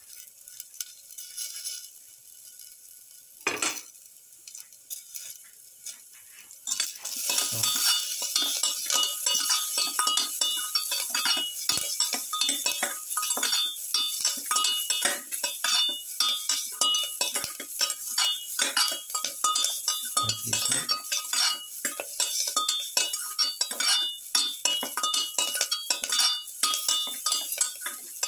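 Perforated metal spatula stirring and scraping against a metal pan of sautéing onions, tomato and curry leaves: a fast, continuous clatter of clinks and scrapes with a metallic ring, starting about seven seconds in after a quieter stretch with a single clink.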